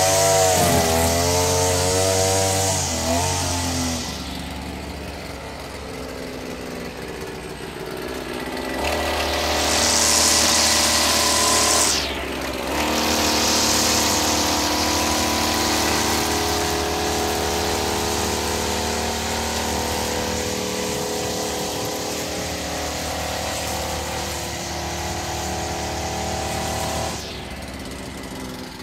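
Gas string trimmer engine running at high revs while trimming grass, its speed and loudness rising and falling as the throttle is worked. It eases back for several seconds early on, drops briefly near the middle, and dips again near the end.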